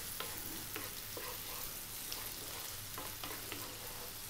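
Chopped onion and garlic frying in oil in a pan over above-medium heat, a steady light sizzle. A wooden spoon stirring them adds short scrapes and taps every so often.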